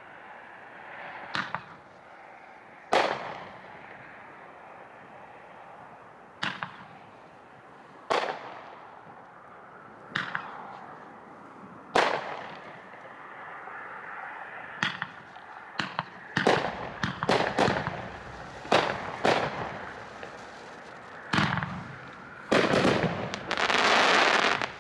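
A 23-shot, 500-gram consumer repeater cake (Hot Shot's Tongues of Fire) firing. Single shots go off every couple of seconds, then quicken after about 16 s into rapid shots. Near the end comes a heavy finale with a dense crackle.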